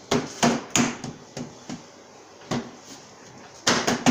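Children's hands slapping a plastic front grille panel onto a Peg Perego Polaris 850 24-volt ride-on toy ATV, smacking it to push it onto its snap points. A series of irregular sharp slaps on hollow plastic, several in the first second, fewer in the middle and a quick run near the end.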